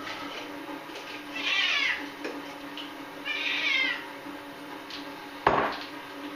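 Domestic cat meowing twice, each call about half a second long and about two seconds apart. A sharp knock near the end is the loudest sound.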